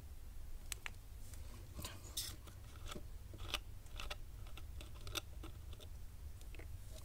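Irregular clicks and short crackles of a plastic screw cap being twisted off a soda bottle, over a steady low hum.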